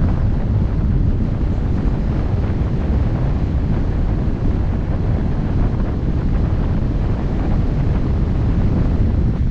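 Wind buffeting the microphone of a camera mounted on the hood of a moving car: a steady, loud low rumble.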